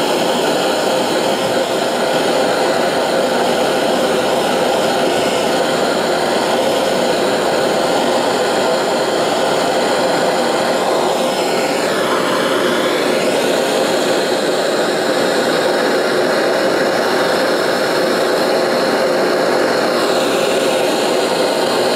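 Hand-held gas torch burning with a steady rushing flame, heating the tang of a hardened steel blade to draw it soft.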